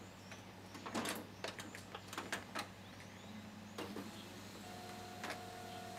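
HP LaserJet 3100 being powered up: a few scattered clicks and knocks, then a steady faint whine starts a little past halfway as the machine comes on in its boot-ROM firmware-download mode.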